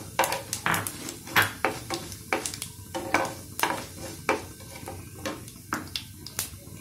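Whole spices tempering in hot oil in a nonstick pan while a wooden spatula stirs them: irregular sharp pops and crackles, a few a second, over a soft sizzle.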